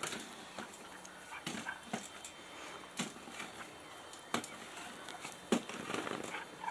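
A Basenji and a Pointer play-fighting: irregular short scuffles and knocks, with brief dog sounds among them.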